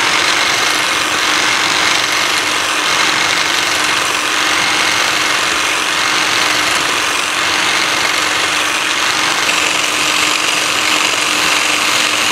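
Power scraper running steadily, its reciprocating blade scraping a babbitt bearing surface. It is cutting a crosshatch scrape pattern for oil retention and clearance.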